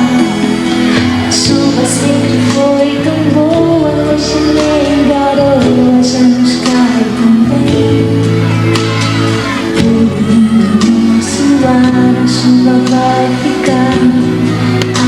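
Live pop music: a band playing with melodic singing over a steady bass.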